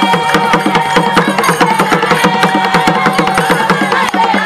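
Fast Gule Wamkulu drumming from a group of Chewa hand drums, dense rapid strokes with steady held notes sounding over them.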